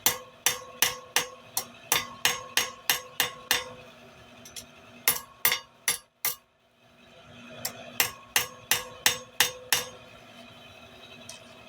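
Blacksmith's hammer striking hot steel stock on an anvil, flattening it, about three blows a second in runs with the anvil ringing between blows. The hammering pauses twice and stops about ten seconds in.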